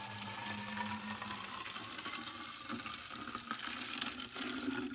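Cooled lemon water being poured into a bottle: a steady pour with a tone that rises slowly in pitch as the bottle fills.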